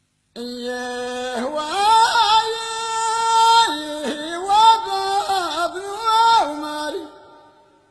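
A single voice singing one long, ornamented phrase, holding notes and sliding between pitches with a slight waver, then fading out near the end.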